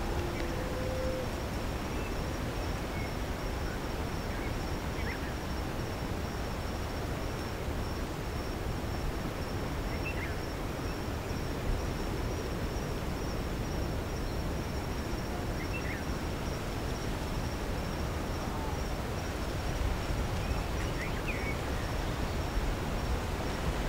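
Steady outdoor valley ambience: a breezy, rumbling noise bed with a faint high steady insect trill, and a handful of brief, faint bird chirps scattered through it.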